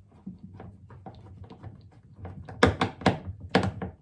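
A screw being driven into a fridge freezer's refitted panel with a screwdriver: a run of small quick clicks and scrapes, then three sharp knocks about half a second apart.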